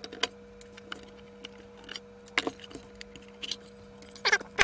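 Screwdriver work and handling of a plastic instrument housing: scattered small clicks and taps of the screwdriver and screws, a louder knock about two and a half seconds in, then a quick burst of plastic scraping and rubbing near the end as the cover and case halves come apart.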